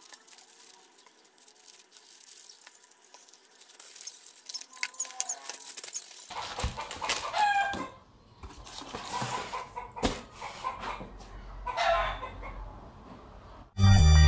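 Plastic bubble wrap crinkling and rustling as a rifle scope is handled in its cardboard box, with bird calls in the background from about halfway through. Loud music starts just before the end.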